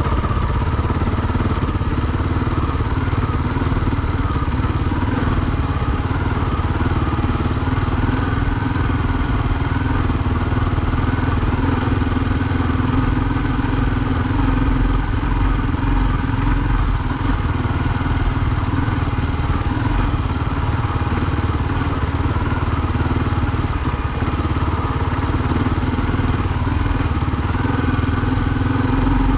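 Trail motorcycle engine running at a steady pace as the bike rides along, with no sharp revving or stops.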